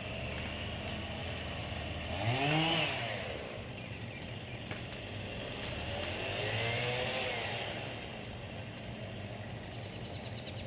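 Two-stroke chainsaw idling, revved up and back down briefly about two seconds in, and again, more gently, around six seconds in.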